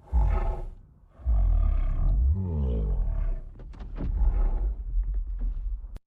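Kong's roar sound effect from Godzilla vs Kong, a designed giant-ape creature roar: a short burst, then after a brief pause a long, deep roar whose pitch falls part-way through. It cuts off suddenly near the end.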